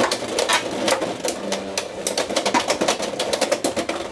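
Beyblade X spinning tops, one of them a HellsChain, clashing in a plastic stadium: rapid, irregular clacks and knocks of the tops striking each other and the stadium walls, stopping abruptly at the end.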